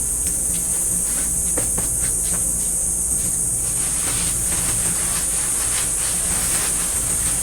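Steady high-pitched drone of cicadas in chorus, with scattered light clicks and knocks of hands working on the kiln.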